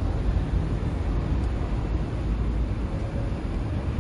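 Steady hiss and rumble of a cartridge gas burner's flame heating a metal basin of water from below.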